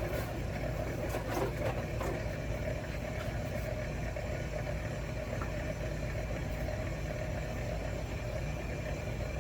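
Motorized wire stripping machine running steadily with a low hum, with a few light clicks in the first couple of seconds.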